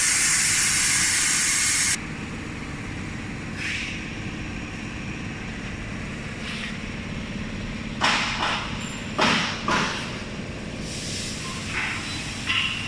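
A machine under test: a loud hiss, like air or steam venting, cuts off suddenly about two seconds in, leaving a steady machine hum with a constant low tone. Several sharp clunks come just past the middle, with lighter ones near the end.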